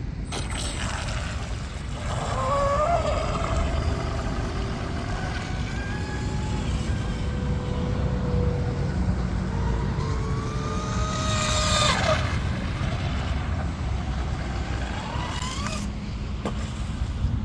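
Brushless electric motor of a small RC F1 tunnel powerboat running on 4S, a thin whine rising and falling in pitch with the throttle, with a sharp drop in pitch about twelve seconds in, over a steady low rumble.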